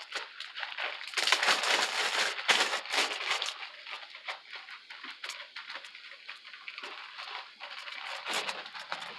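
Clear plastic zip-top bag crinkling and rustling in the hands as it is handled and opened. It is loudest in the first few seconds, then fainter and more scattered.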